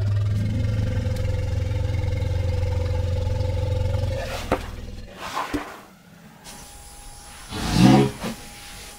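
Asian elephants calling: a steady low rumble for about four seconds, then a short, loud call about eight seconds in.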